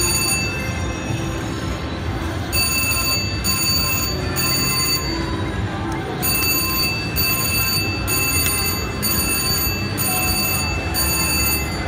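Slot machine electronic chiming tones over casino floor din. High steady tones switch on and off in stretches of a second or two above a constant low murmur.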